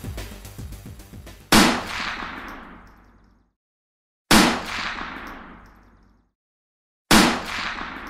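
Three single rifle shots about three seconds apart, each a sharp crack followed by a long echoing tail that dies away over about two seconds. The end of the intro music fades out just before the first shot.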